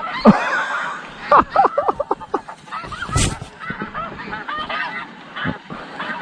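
A flock of snow geese calling: many short, high honks overlapping in a steady clamour.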